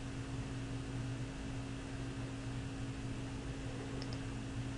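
Steady low electrical hum with faint hiss, and a faint double mouse click about four seconds in.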